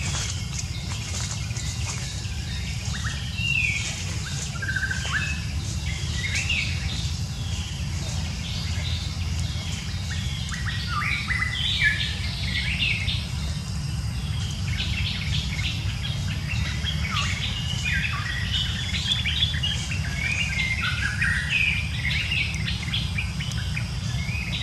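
Small birds chirping, many short high calls that come sparsely at first and crowd together from about ten seconds in, over a steady low rumble.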